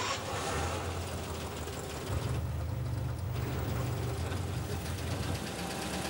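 Car engine idling with a steady low rumble that settles in under a second in.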